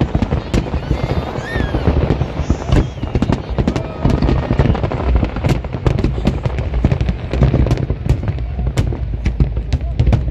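Fireworks display going off: a rapid, irregular stream of sharp bangs and crackles over a continuous low rumble of booming shells, with faint crowd voices underneath.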